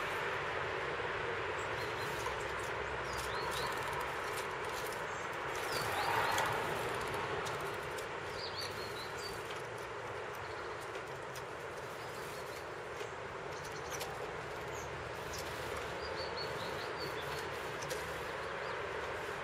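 Small songbirds at a feeder (tits and a nuthatch) giving short, high chirps in a few scattered clusters, with occasional light clicks, over a steady background rumble of outdoor noise.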